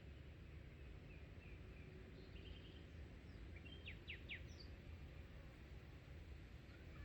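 Faint bird calls: a few short chirps, then three quick, sharp notes about four seconds in, over a low, steady background rumble.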